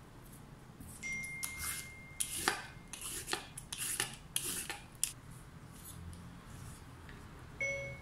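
A vegetable peeler scraping down a cucumber's skin in quick strokes, about eight scrapes in a row, with the wooden cutting board under it. A short ringing clink comes near the end.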